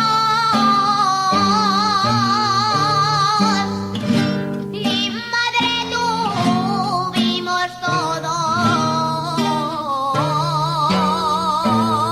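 Aragonese jota sung by a woman, long held notes with a wide vibrato and a gliding fall in pitch midway, over plucked guitar accompaniment.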